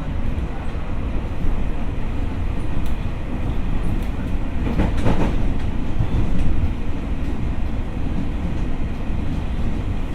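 Tokyo Metro 6000 series electric train running on the line, heard from inside the car: a steady rumble of wheels on rail, with a brief louder rattle about five seconds in.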